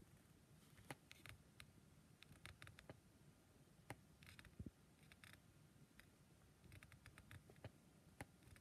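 Near silence, broken by faint, scattered clicks and taps from working a laptop while its web page is scrolled.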